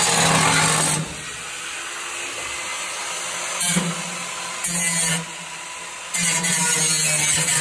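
Power saw cutting car-body sheet metal in stop-start bursts: about a second of cutting at first, two short bursts around the middle, then a longer run near the end.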